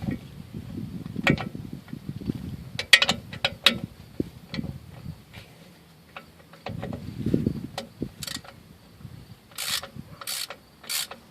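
Metal clicks and clinks of hand tools on drum brake hardware, with a few short ratcheting bursts near the end as a part is worked tight.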